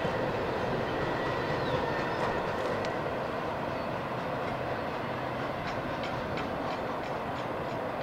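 Double-stack freight train cars rolling past on steel rails: a steady rumble of wheels, with faint clicks in the second half as wheels cross rail joints.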